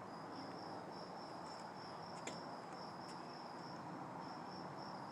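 Insects chirping steadily in a continuous high, pulsing trill, with a couple of faint clicks in the middle.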